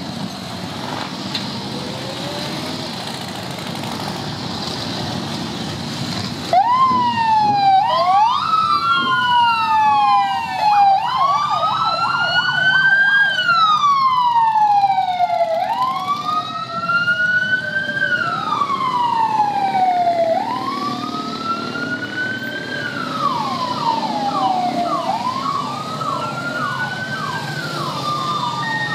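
Motorcycles rumbling past in a procession. About six seconds in, a siren starts suddenly and wails up and down over the engines every four to five seconds, breaking twice into a short stretch of rapid yelping.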